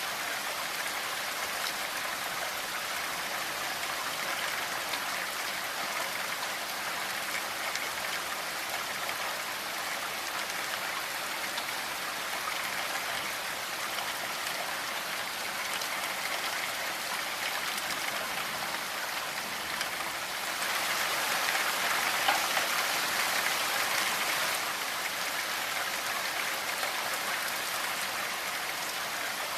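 Steady rainfall, many drops pattering on a surface in a dense even hiss, swelling a little louder for a few seconds past the middle.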